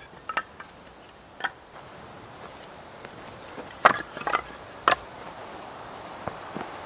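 Wood being chopped for firewood: sharp, separate knocks, a few near the start and the loudest three together about four seconds in.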